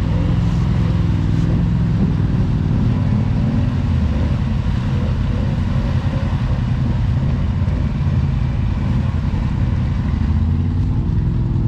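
ATV engines running with a steady low drone and slight rises and falls in pitch, as a quad works through a deep mud hole.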